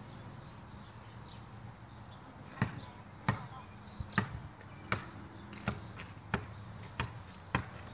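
Basketball being dribbled: about nine bounces, roughly one every two-thirds of a second, starting a few seconds in.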